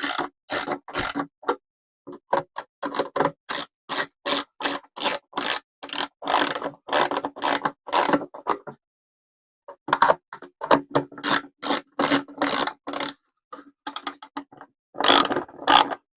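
Socket ratchet tightening nuts onto bolts through a plastic housing: runs of quick clicking strokes, about three a second, with short pauses between nuts.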